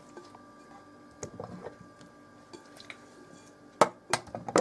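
Mustard-coated potato cubes being put onto a metal baking tray: soft, wet handling sounds and a few sharp knocks of potato against the tray, the loudest a little before the end.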